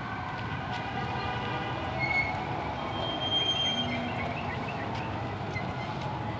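Steady city street and traffic noise, with a few short high-pitched squeals held for under a second each, about two to four seconds in.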